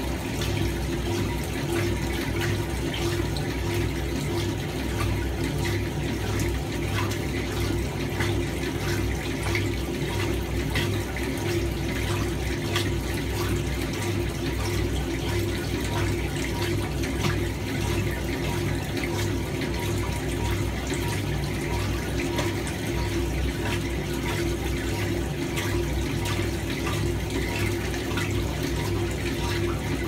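1976 Hoover 620 top-loading washing machine running with its lid open: water churning and sloshing in the tub over a steady motor hum.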